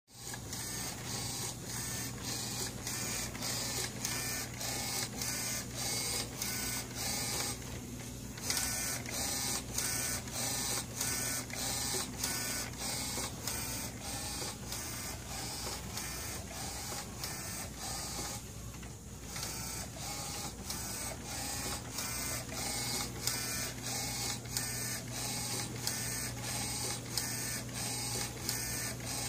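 Direct-to-film printer printing, its print-head carriage shuttling back and forth across the film in a regular clatter about twice a second, over a steady hum.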